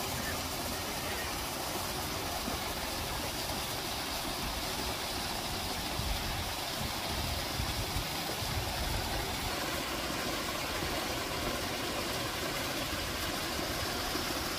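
Paddlewheel pond aerators running, a steady rush and churn of splashing water with a motor-like hum beneath.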